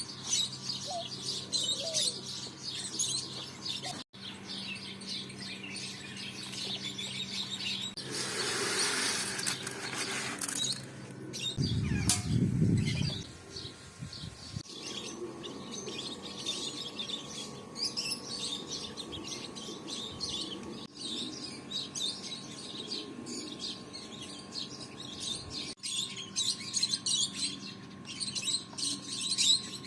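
Many small birds chirping and twittering. About eight seconds in there is a couple of seconds of rushing noise, and around twelve seconds a loud, low rumble.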